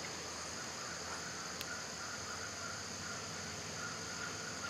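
Steady high-pitched chorus of insects such as crickets, with one faint tick about a second and a half in.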